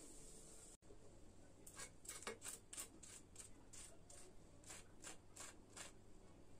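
Kitchen tongs picking crispy air-fried chicken wings out of the air fryer basket: a run of faint clicks and crisp scrapes, about three a second, starting about two seconds in.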